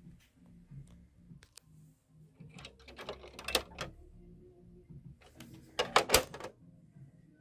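Hard plastic clicking and rattling in two short bursts, about three seconds in and again, louder, about six seconds in, as the clear plastic canopy of an Action Man Silver Speeder toy car is gripped and moved.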